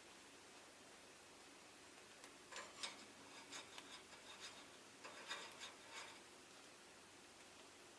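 Faint scratching and rasping, a quick run of small clicks and scrapes about two and a half seconds in and another about five seconds in, over a quiet room hiss.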